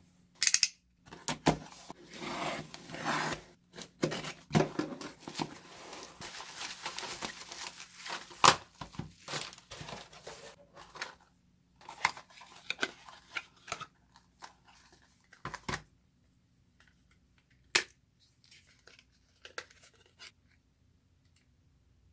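Packaging of a Pilot Kakuno fountain pen being torn open and handled: tearing and crinkling for the first ten seconds or so, then scattered taps and sharp clicks, the loudest about eight seconds in and one more near eighteen seconds.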